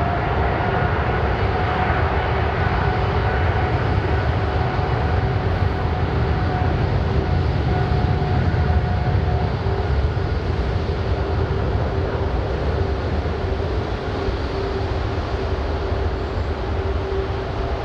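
Airbus A340-600's four Rolls-Royce Trent 500 jet engines running at low taxi power: a steady rumble with an engine whine that levels off and fades out about ten seconds in, over a lower steady hum.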